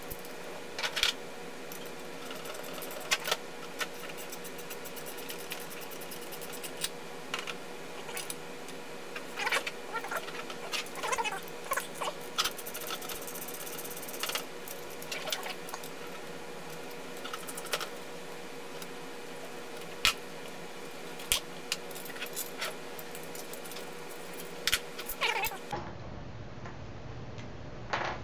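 Scattered light clicks, taps and short scrapes of small metal parts and hand tools being handled against an aluminium plate and a table, over a steady faint hum.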